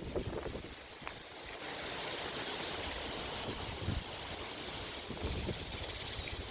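Windstorm wind blowing steadily, a constant rushing hiss with low buffeting on the microphone.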